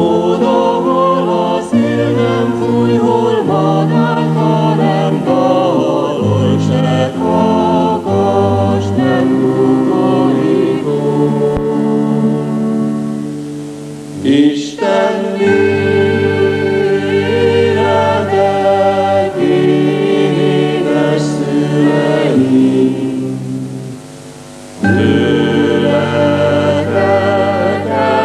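Choir singing slow, sustained chords, dipping briefly about halfway and again near the end.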